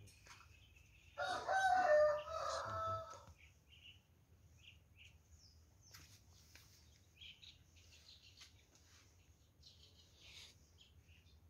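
A rooster crowing once, starting about a second in and lasting about two seconds. Faint, short chirps of small birds follow it.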